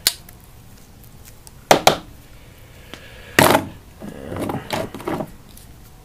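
Hand tools and cable being handled on a workbench: a sharp click, then a quick double click about two seconds in, a louder short rasp a little past the middle, and some softer rustling after it.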